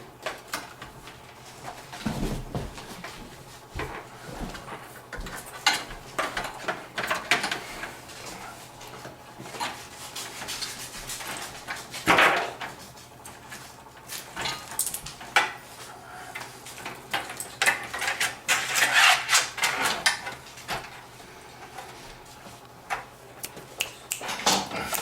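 Hands rummaging among computer parts and cables while searching for a spare SATA cable: irregular light clicks, knocks and rustling of small hard plastic and metal items, with a louder clatter about halfway through and a busier run of handling sounds later on.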